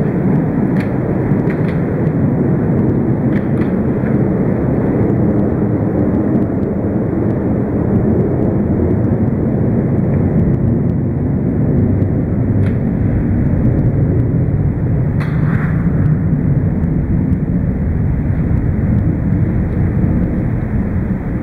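A steady, loud, low rumble runs throughout, with a few faint clicks of a putter striking golf balls.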